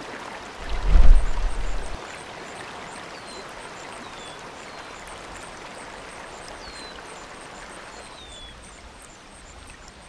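Mountain river rushing over boulders, a steady hiss of flowing water, with faint high short chirps scattered through. About a second in comes a loud low rumble lasting about a second.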